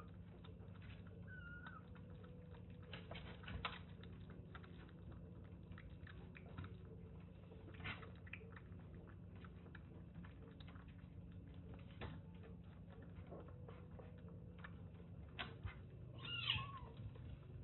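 A young kitten sucking milk from a small nursing bottle, with many faint soft clicks as it suckles. It gives a short mew about a second in and a louder mew, falling in pitch, near the end.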